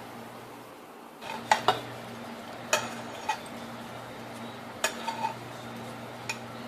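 Metal utensils clinking against a cooking pan: about seven short, scattered clinks over a steady low hum.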